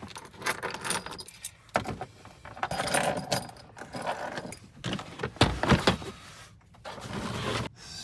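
Irregular clattering and metallic clinking of tools and objects being handled and moved about.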